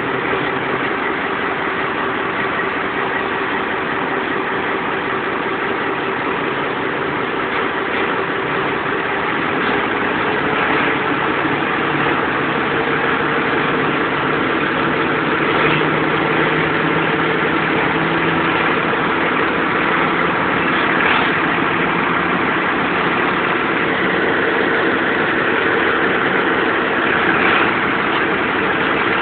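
Diesel locomotive engine working hard as the train pulls away, its pitch rising partway through as the throttle is opened up to notch 8, then holding steady at full power.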